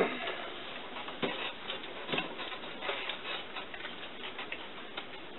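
Playing cards being handled and sorted at a table: light, irregular clicks and rustles, with a couple of slightly sharper ones in the first half.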